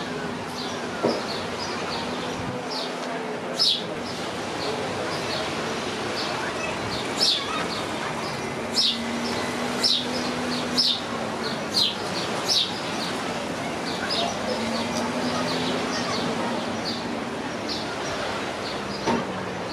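Birds chirping over and over, with short, high, downward-sliding calls and a louder one every second or two. Underneath, a low hum rises and fades a few times.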